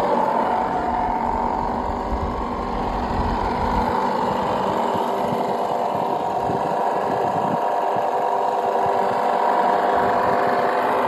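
Simulated engine sound from the RC model Land Rover Discovery 5's onboard sound unit, a steady engine note, mixed with the whir of the model's electric drive and gears.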